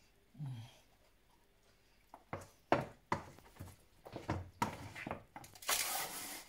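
A metal slotted spoon scooping baked rice off a parchment-lined baking tray into a ceramic bowl. A run of knocks and clinks starts about two seconds in, with a longer scraping rustle near the end.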